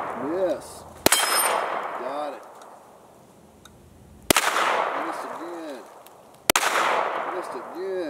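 Three shots from a 9mm Glock 34 Gen 5 MOS pistol, the first about a second in, then about three and two seconds apart. Each shot trails off in echo, and a short, fainter ring from the struck steel target follows it.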